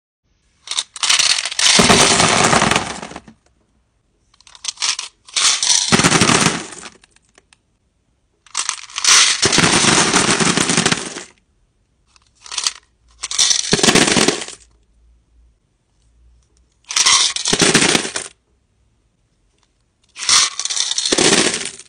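Tumbled crystal stones and rough crystal chips poured from a bag and a bowl into plastic storage bins, a dense clatter of stone landing on stone and plastic. There are eight separate pours, each lasting from half a second to nearly three seconds, with silence between them.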